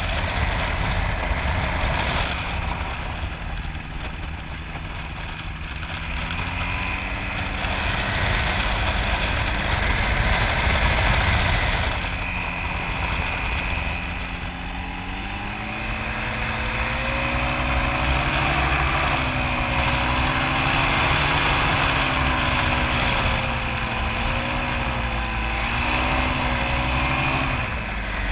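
Microlight trike's engine running in flight under heavy wind rush, its note rising and falling repeatedly as the throttle is worked on the approach to landing.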